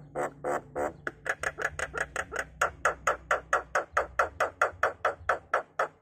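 Javan myna calling in a rapid run of short repeated notes, about four to five a second, growing louder after the first second.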